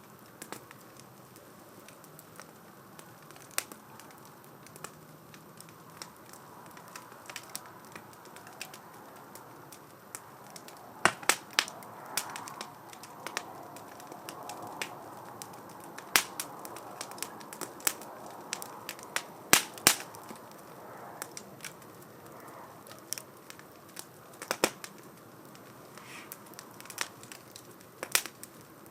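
Wood fire burning in a 2×4 STOVE fire stand: a soft steady rush of flame with scattered sharp pops and crackles, busiest in the middle.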